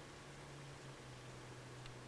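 Quiet background hiss under a faint, steady low hum, with one soft tick near the end.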